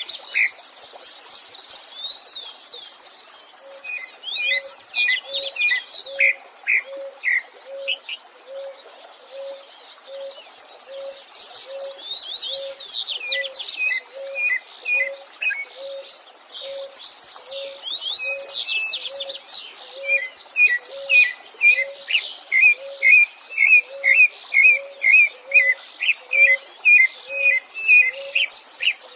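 Several songbirds singing at once: bouts of rapid, high twittering song that stop and restart, over a series of clear, separate lower notes. Beneath them, a low note repeats evenly about every two-thirds of a second.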